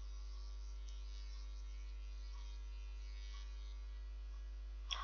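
Steady low electrical hum with a faint hiss above it, unchanging throughout: the recording's background noise.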